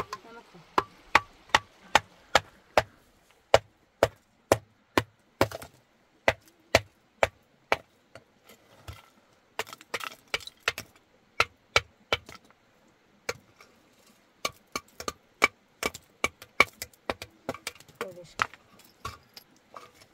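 Repeated sharp strikes, two to three a second, in runs broken by short pauses: steady blows of a tool on something hard.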